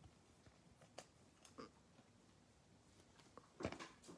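Faint handling noise of trading cards moved about by gloved hands: a few soft scattered taps, with a louder brushing sound about three and a half seconds in.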